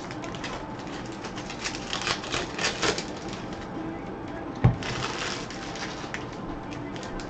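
Trading cards and pack wrappers being handled: a run of light clicks, taps and rustles, with one dull thump about four and a half seconds in.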